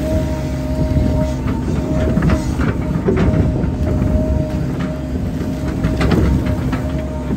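Hydraulic excavator's diesel engine running steadily with a hydraulic whine that comes and goes, and irregular clanks and knocks from the bucket and arm as it pats down a mud embankment.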